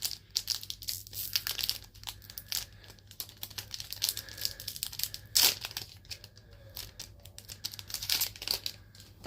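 Foil wrapper of a trading-card pack being torn open and crinkled by hand, a run of dense crackles with louder rips about five and a half and eight seconds in.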